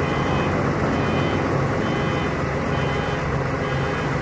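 Flatbed tow truck's engine running steadily while its hydraulics slide the tilted bed back.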